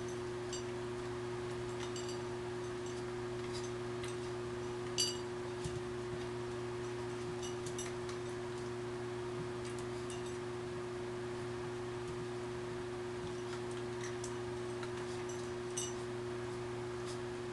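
Italian greyhound puppy eating dry kibble from a bowl: scattered sharp crunches and clicks, the loudest about five seconds in and again near the end, over a steady low hum.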